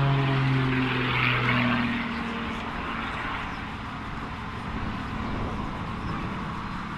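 Extra 330 aerobatic monoplane's piston engine and propeller droning overhead, its pitch sinking over the first two seconds. The sound then drops in level to a steadier, more distant drone as the plane climbs away.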